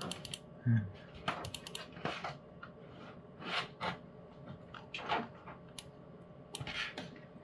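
Scattered light clicks and taps, irregular and sharp, with a brief low sound about a second in.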